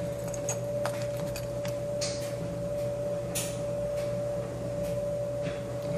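Soft handling noises as a padlock key and a leather zip pouch are held and moved in the hands, a few brief rustles over a steady hum.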